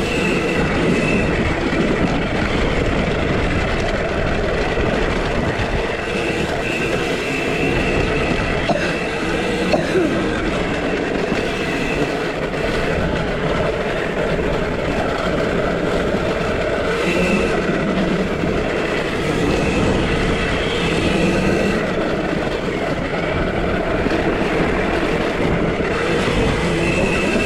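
KTM SX-E5 electric youth dirt bike under way: a high electric-motor whine that comes and goes over a steady rushing noise of drivetrain and motion.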